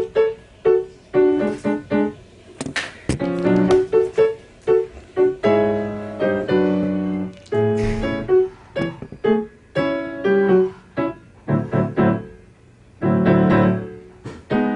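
Background music led by piano, a light tune of short, separate notes.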